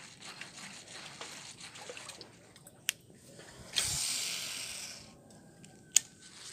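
A sudden splash at the water surface around a topwater popper lure, lasting about a second: a hampala barb striking the popper. A sharp click comes just before the splash and another near the end.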